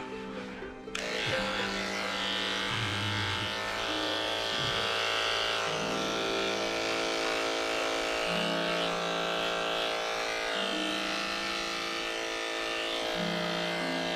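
Andis two-speed electric grooming clippers buzzing steadily as they trim a dog's face and ears. They cut out briefly and start up again about a second in. Background music with a stepping bass line plays throughout.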